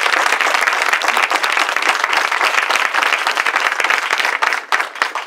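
Applause from a room full of people, steady at first, then thinning out to a few scattered claps near the end.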